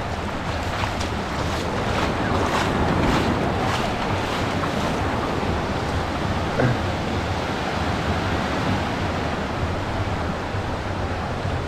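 Ocean surf breaking and washing up on a sandy beach, with wind buffeting the microphone; the surf swells louder about two to five seconds in.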